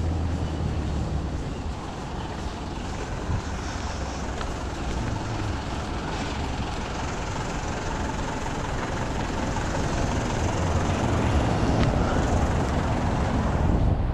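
Street traffic: a motor vehicle's engine running with a steady low hum over a general street noise, growing louder near the end.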